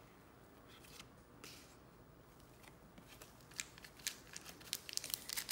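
Trading cards being handled and flipped, the card stock making light clicks and slides. It is faint at first, then turns into a quick run of sharp clicks in the second half.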